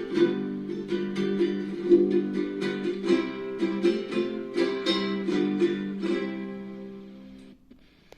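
A small plucked string instrument, ukulele- or guitar-like, playing a quick run of picked notes and chords that fades away near the end.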